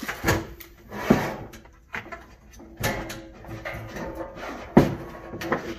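Cash drawer being handled and pushed into its slot under a counter: a series of knocks and clunks with scraping in between, the sharpest knock a little before the end.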